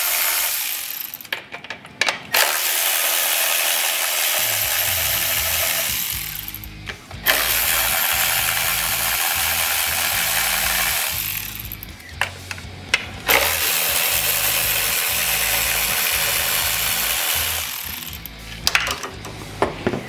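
Milwaukee cordless electric ratchet spinning out the ignition coil mounting bolts on a Coyote 5.0L V8. One run ends about a second in, then three more runs of about four seconds each follow with short pauses between. A few small clicks come near the end.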